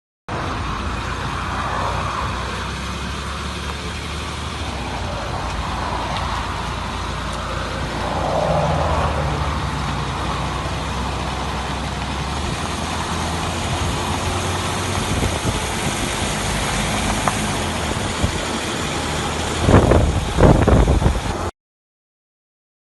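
A motor vehicle running steadily: a low engine hum with road noise. Several loud knocks or bumps come near the end.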